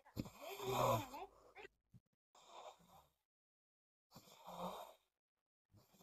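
A sleeping woman snoring: one long, loudest snore at the start, then three shorter ones about every two seconds, with silence between them.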